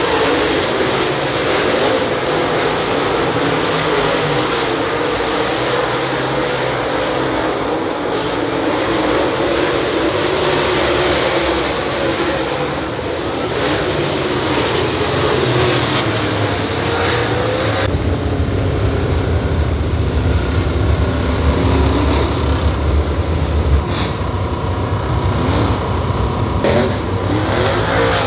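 Dirt late model race cars' V8 engines running together around a dirt track, their pitch wavering as they circulate. About two-thirds of the way through, the sound changes to a steadier, lower engine rumble.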